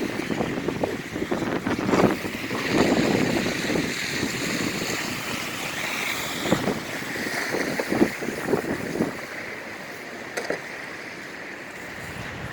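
Street traffic in a snowstorm, with wind on the microphone: a steady rushing noise that swells unevenly, with a few short knocks.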